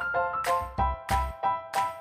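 Background music with an even beat of bright notes, about three a second, over a low bass.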